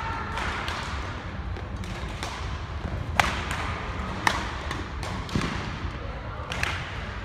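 Badminton rally: a string of sharp racket hits on the shuttlecock roughly a second apart, the loudest two a little past the middle, with the players' footsteps thudding on the court.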